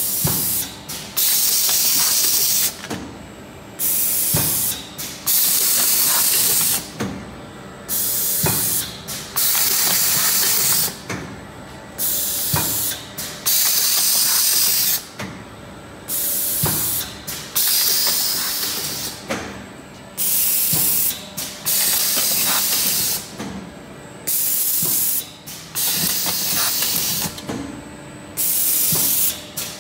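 Twin-head rotary tart-forming machine cycling: bursts of rushing air hiss, each about a second long, come every one to two seconds as the heads press, with sharp knocks between the bursts.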